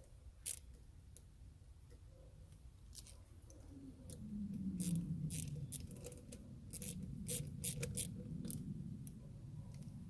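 Ratchet driving a 7mm socket, clicking in short irregular runs as a hose clamp on a new coolant hose is tightened. A low hum sits under the clicks from about four seconds in.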